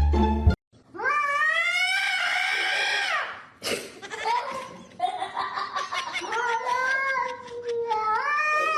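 A cat yowling in long, drawn-out wavering calls: one of about two and a half seconds, then after a short pause a longer one that rises again at its end. A brief burst of music cuts off just before the first call.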